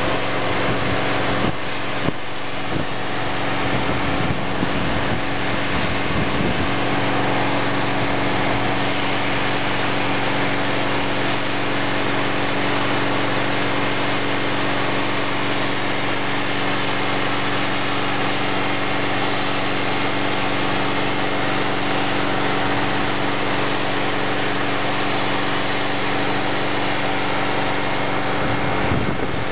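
A 1966 Ford Super Duty fire truck's engine running steadily under load, driving its fire pump at about 225 psi, with the steady hiss of the water stream from a 1-1/2 inch hose nozzle over it.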